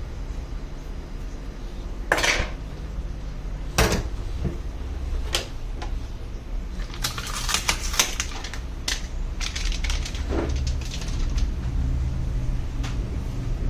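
Small hard tools and parts clinking and knocking on a workbench: a few separate knocks, then a quick run of clicks about halfway through, over a steady low hum.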